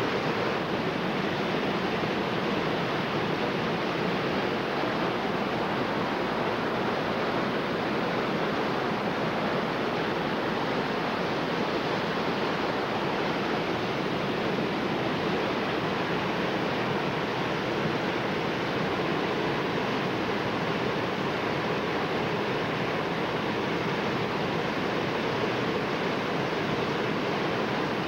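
Steady rushing of whitewater from the creek's rapids and falls, an even, unbroken wash of water noise that does not change.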